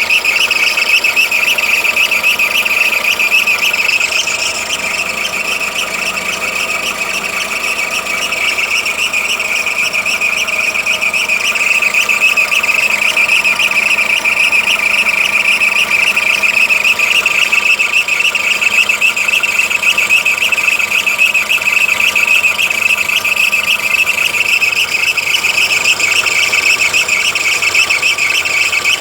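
Skoda Fabia engine running with a steady high-pitched whistle from the timing-belt drive, fluttering rapidly. The owner says the whistle dies away as the engine warms up.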